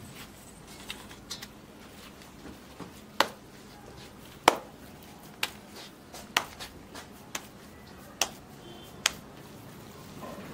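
Hands slapping a ball of dough flat between the palms: sharp pats, about one a second for most of the stretch, with quieter pats in between.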